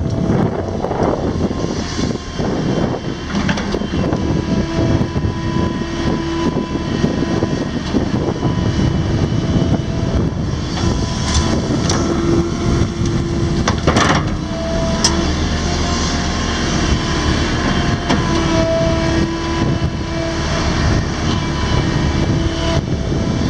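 Case hydraulic excavator's diesel engine running steadily under load, with a hydraulic whine that comes and goes as the arm and bucket work. Dirt and rocks tumble from the bucket into a steel truck bed, with occasional sharp knocks, the loudest about fourteen seconds in.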